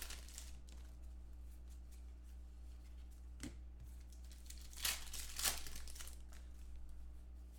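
Foil trading-card pack wrappers crinkling and tearing as hands open packs and handle the cards, with a few sharp crinkles about three and a half and five seconds in, over a faint steady hum.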